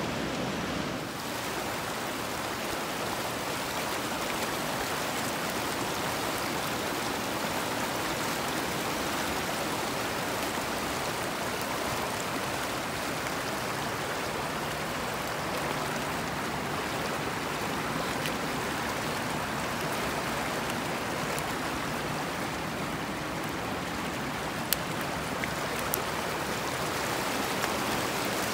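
Steady rush of a fast-flowing stream running over rocks, with two sharp clicks near the end.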